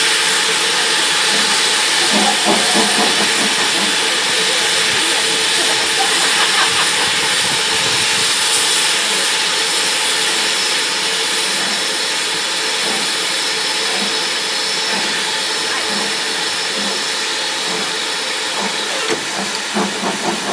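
LMS Jubilee class 4-6-0 steam locomotive 45596 moving off slowly with its train, steam hissing loudly and steadily, with a few knocks near the end.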